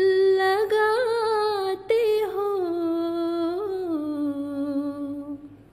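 A woman's solo voice chanting a line of an Urdu nazm, drawing one syllable out into a long held phrase. The pitch wavers and slides, steps down and settles lower, then fades out just before the end.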